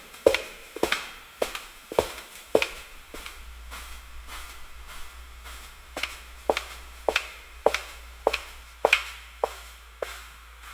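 Hard-soled footsteps walking at a steady pace, a little under two steps a second, on a hard floor in an echoing hallway. The steps grow faint for about three seconds in the middle, then come back clearly, over a low steady hum.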